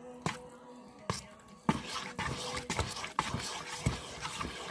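A metal spoon stirring a wet bread-cube stuffing in a stainless steel mixing bowl, knocking against the side of the bowl about twice a second.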